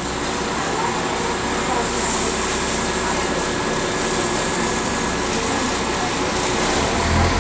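London Midland diesel multiple unit running steadily at the platform, a steady engine drone as the train moves slowly past.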